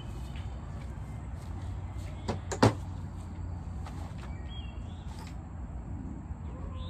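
Two short sharp knocks a moment apart, about two and a half seconds in, the second louder, over a steady low hum.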